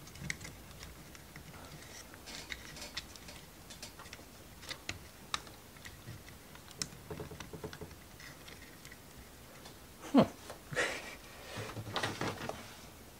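Small parts of a ROKR wooden marble-run model kit being handled and pushed together while an axle is forced into place: scattered light clicks and taps, a sharper knock about ten seconds in, then some scraping and rubbing near the end.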